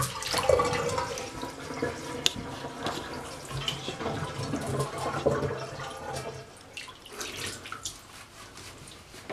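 Water splashing and running in a bathtub while a wet kitten is bathed. It is loudest in the first few seconds and dies down toward the end.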